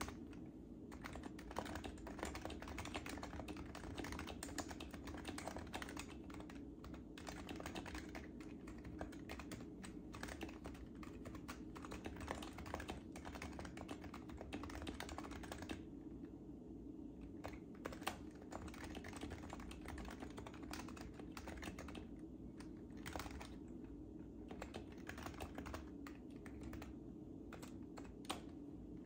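Fast continuous typing on an HHKB Professional JIS Type S keyboard, its silenced Topre capacitive switches clicking in a dense stream of keystrokes, with a brief pause about sixteen seconds in.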